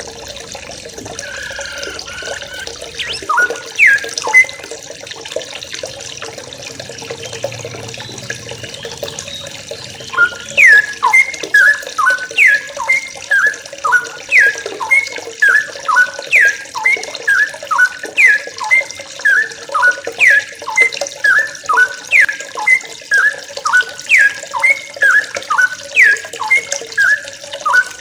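Yellow-vented bulbul (trucukan) calling in a run of sharp falling notes, a few near the start and then about two a second from roughly ten seconds in, over a steady rush of running water.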